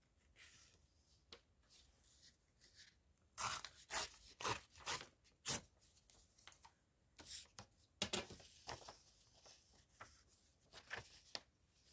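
Paper being handled and torn against a metal ruler: short, crackly rips and rustles in a few clusters, with quiet pauses between.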